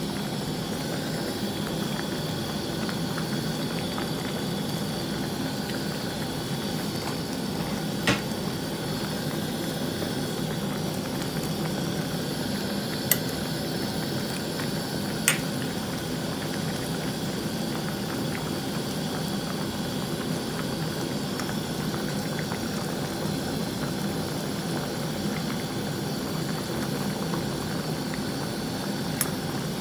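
A pot of beef and pork sinigang soup boiling steadily, bubbling at a constant level, with four brief sharp clicks along the way.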